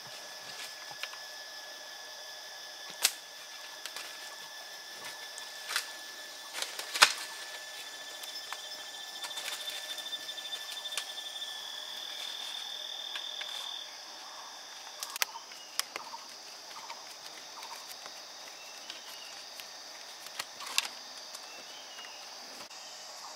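Insects chirring in a steady high tone that cuts off about halfway through, over a background of other insect noise, with a handful of sharp clicks and knocks scattered through.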